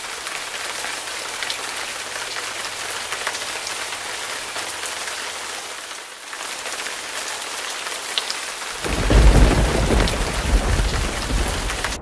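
Steady hiss of falling water; about nine seconds in, a heavier, deeper rumbling rush sets in and stays.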